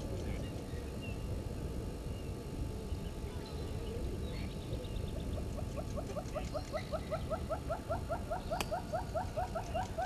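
An animal calling: a fast, even series of short rising notes, about five a second, starts about halfway in and keeps going. Faint scattered bird chirps and one sharp click near the end sit over a steady low background noise.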